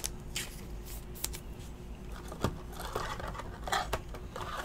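A trading card and its clear plastic sleeve being handled: light scraping and rustling of plastic, with a few sharp clicks.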